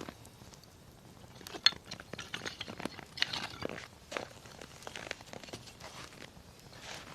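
Dry firewood crackling and crunching in irregular sharp clicks and snaps, with a louder crack about a second and a half in.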